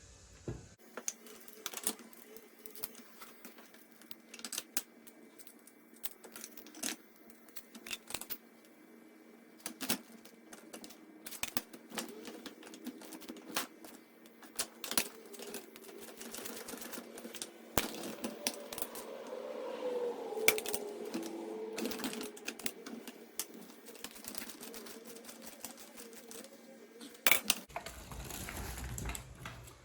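Irregular metallic clicks and clinks of caster bolts and nuts being fitted and tightened onto a steel wheel-dolly frame with a 19 mm socket wrench. A wavering whine comes in for a few seconds in the middle.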